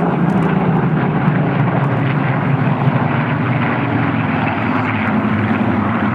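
Four Spitfire and Hurricane fighters flying past in formation, their piston aero engines running in a loud, steady drone.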